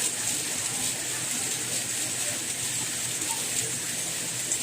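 Steady rainfall, a dense even hiss of drops with faint patters.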